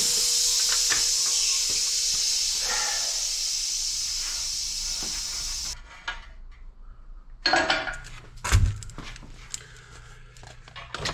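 A steady hiss for about six seconds, fading slightly and cutting off sharply. Then light metal clicks and two heavy clunks near the end as a hydraulic cylinder part drops onto the floor.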